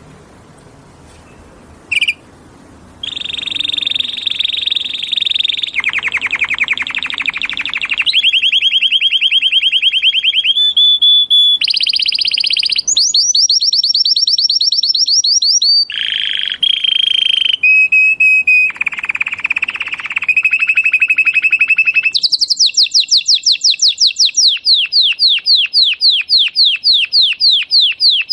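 Canary singing a long, loud song of changing trills, rolls and rapid repeated high notes, after a quiet start broken by a single chirp about two seconds in. Near the end the song settles into a steady run of quick falling notes, several a second.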